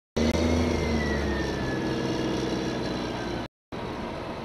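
A crane's engine running with a low hum while the hook block is lowered, with a thin whine that slowly falls in pitch. The sound drops out briefly twice.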